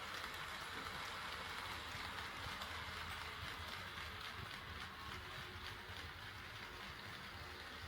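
HO scale model train running on KATO Unitrack: a steady rolling noise with many faint ticks from the wheels.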